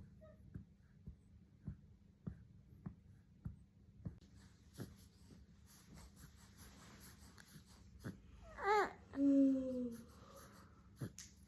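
A burp a little after eight seconds in: a short wavering sound, then a longer one falling in pitch. Faint clicks about every half second run underneath.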